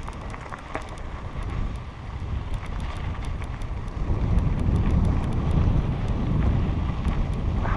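Wind buffeting a helmet camera's microphone during a mountain bike ride on a dirt trail, with light clicks and rattles from the ride. The rumble grows louder about four seconds in.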